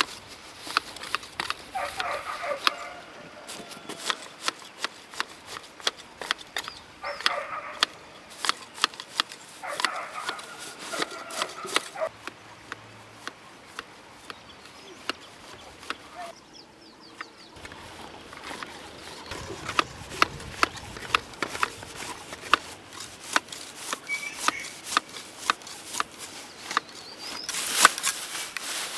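Long-handled grass shears snipping grass, each cut a sharp click of the blades closing, irregular and coming faster near the end.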